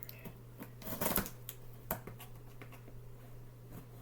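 Scattered rustling and light clicks of items and packaging being handled, with the loudest clatter about a second in and another just before two seconds.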